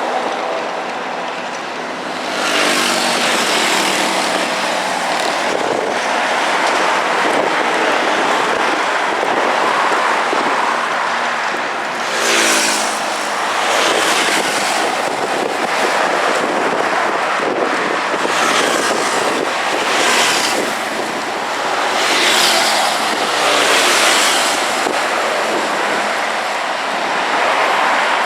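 Heavy street traffic: a continuous stream of cars and other vehicles driving past at low speed, with about four closer passes swelling louder through the stretch.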